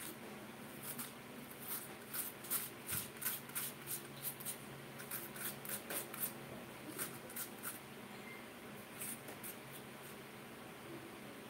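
A metal spoon scraping the flesh out of a cooked potato half, making a quick series of short scrapes about three a second. The scrapes start about a second in and die out near the end, over a faint steady hum.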